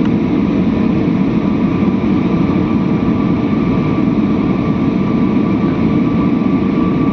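Steady drone of an airplane in flight heard from inside the cabin: an even, unbroken rush of engine and airflow noise, low and heavy, with a faint steady hum running through it.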